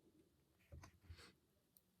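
Faint handling sounds: soft scratchy rustles and a few light clicks, bunched together about a second in.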